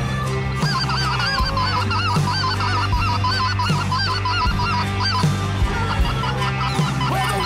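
A flock of geese calling: many high, yelping calls overlapping one another continuously. Background music with a steady beat runs underneath.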